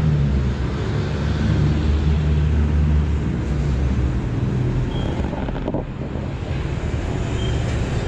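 Motor vehicle engine running with a steady low hum that eases after about four seconds, with wind rumbling on the microphone.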